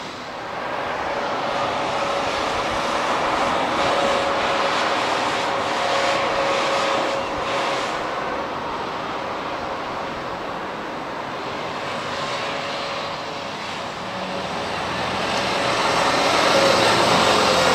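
Single-decker bus driving round a roundabout, its engine and drivetrain giving a steady whine over tyre and road noise. It grows louder near the end as it passes close by.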